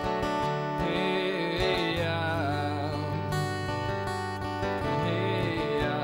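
Acoustic guitar strummed steadily, with a male voice singing a held, wavering line about a second in and again near the end.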